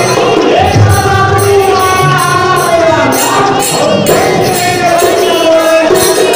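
A man singing a Holi folk song over a hand-played dholak drum keeping a steady beat, with high jingling or cymbal-like strokes in the rhythm.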